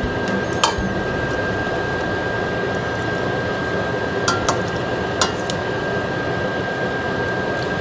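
Metal tongs give a few sharp clinks against a stainless steel pan and plate while serving pasta. Under them runs a steady hiss with a faint, thin, steady high tone.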